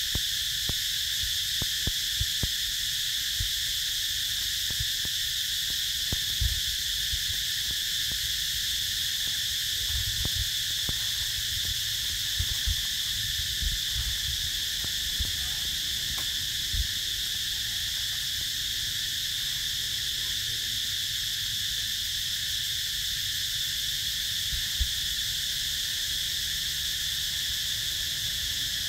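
Steady insect chorus, an even high-pitched buzz that does not change, with scattered soft low thumps.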